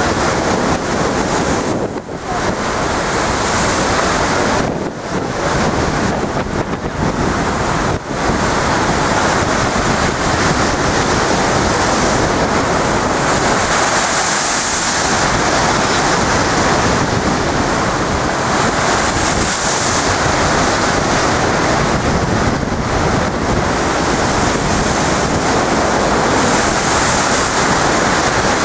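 Storm waves breaking against a sea wall: a loud, continuous rush of surf, with strong wind buffeting the microphone.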